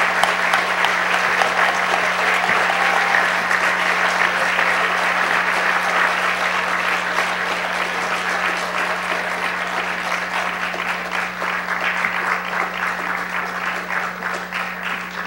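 Audience applauding, a dense steady clapping that slowly tapers off toward the end, over a steady low electrical hum.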